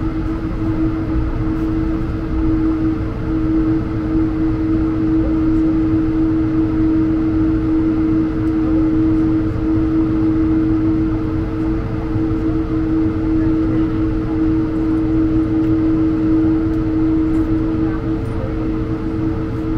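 Steady hum inside the cabin of an Airbus A220-100 on the ground, from its Pratt & Whitney PW1500G engines at idle: two unchanging tones over a low rumble.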